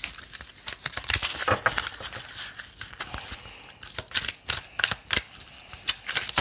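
A deck of oracle cards being shuffled by hand, the cards flicking and snapping against each other in quick, irregular clicks.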